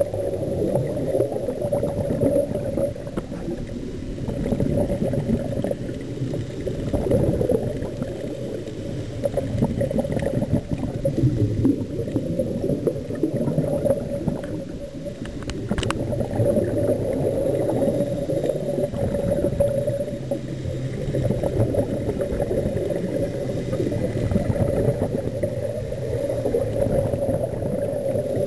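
Scuba divers' regulator exhaust bubbles, heard muffled underwater, swelling and fading every few seconds with each breath.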